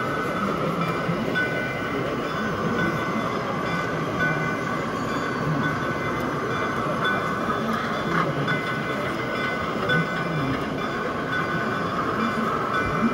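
Large-scale model Shay geared steam locomotive running slowly along the track, a steady train-like running sound over a continuous background hubbub.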